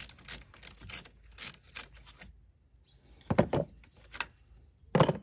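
Ratchet with a 10 mm socket clicking in quick strokes, about four or five clicks a second, as the nut on the car battery's positive terminal clamp is loosened. The clicking stops about two seconds in, and two louder clunks follow as the terminal clamp is worked off the battery post.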